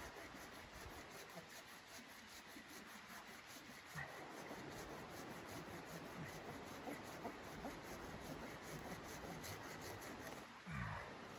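Red-handled hand saw cutting through a small log in steady back-and-forth strokes, the teeth rasping on the wood. A brief louder knock comes near the end.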